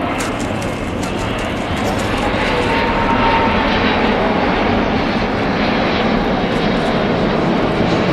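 Airbus A380's four turbofan jet engines, a loud steady jet rumble with a faint whine, growing louder over the first few seconds and then holding.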